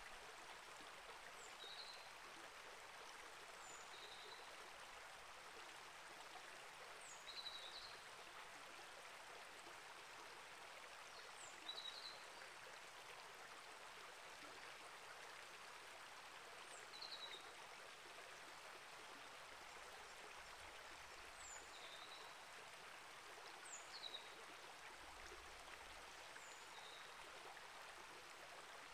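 Small rainforest creek flowing steadily, faint and even, with short high chirps every couple of seconds.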